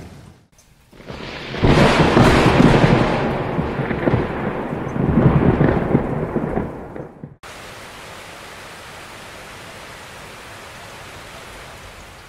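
A loud rumbling, rushing roar like a heavy storm lasts about five seconds and stops abruptly. A steady, even hiss like falling rain follows.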